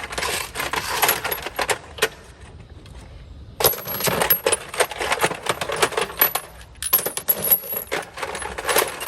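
Metal hand tools clinking and clattering against each other as they are taken out of a steel tool box drawer. The clatter pauses briefly about two seconds in, then starts again.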